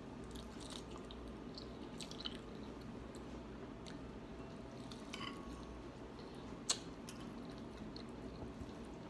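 Faint chewing and mouth smacks of people eating, with scattered small clicks; one sharper click comes about two-thirds of the way through.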